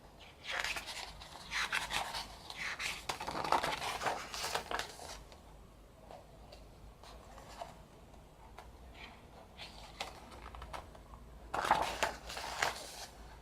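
Paper and card rustling and scraping as the album's printed contents are handled, in two spells of quick, scratchy strokes: one in the first few seconds and one shorter spell near the end, with softer handling between.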